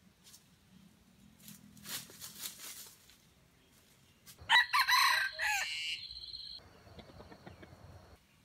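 Red junglefowl rooster crowing once, a short crow about halfway through, after a few faint crackles.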